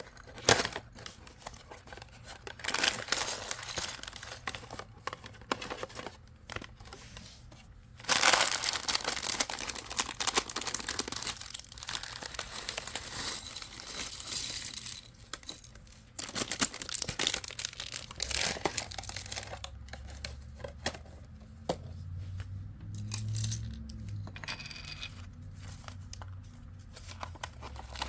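Packaging of a small Lego set being torn open and crinkled by hand: irregular bursts of tearing and rustling, most continuous for several seconds in the middle.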